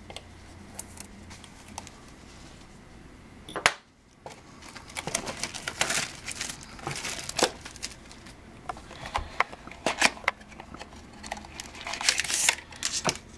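Plastic wrapping and card packaging being torn open and crinkled by hand, with a sharp snap a little under 4 seconds in and bursts of crackling after it.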